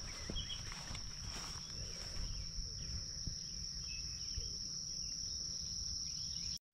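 Insects singing a steady, unbroken high-pitched trill. It cuts out abruptly near the end.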